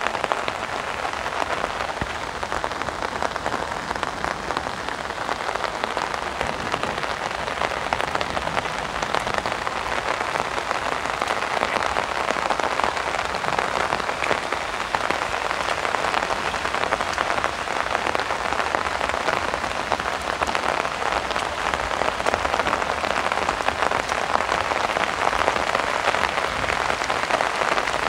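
Heavy rain falling steadily, the drops pattering on an umbrella.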